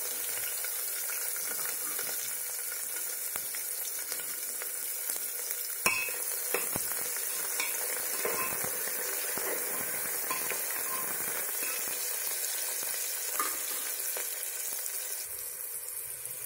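Chopped onions sizzling steadily as they fry in hot oil in a pressure cooker, stirred with a steel spoon that clinks against the pot a few times.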